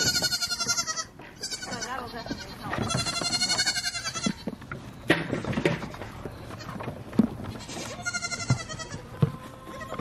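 Baby goats bleating: several long, high, wavering calls, the loudest right at the start, around the middle and near the end. Between the calls come sharp short knocks of small hooves on wooden boards.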